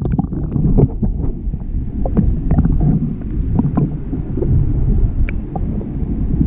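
Steady low rumble of wind and water noise around a small fishing boat, with scattered light knocks.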